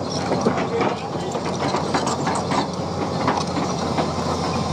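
Heavy machinery engine running steadily, with irregular metallic clicks and clanks over it.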